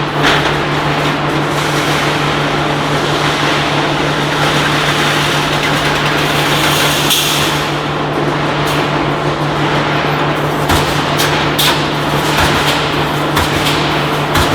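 Automatic steel-mesh resistance welding machine running: a steady electrical hum under a dense wash of shop noise, with sharp clanks and bangs at irregular intervals, bunched together in the last few seconds.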